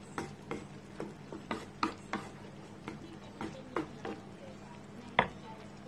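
A spatula clicking and scraping against a nonstick pan as fried tofu and pork are stirred: a dozen or so irregular light knocks, with one louder knock about five seconds in.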